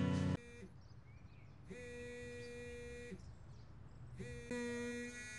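A guitar song cuts off abruptly at the start, then an electronic buzzer sounds twice in long steady tones, the first about a second and a half, the second about a second.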